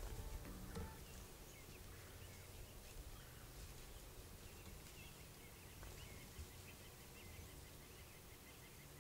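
Faint outdoor ambience with scattered distant bird chirps; from about halfway, a steady run of quick, high ticking calls repeats several times a second.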